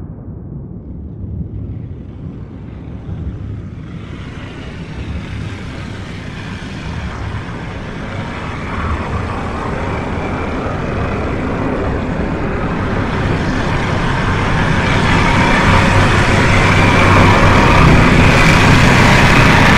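A low mechanical rumble swells steadily louder over the stretch, with a rushing hiss building on top of it and loudest near the end.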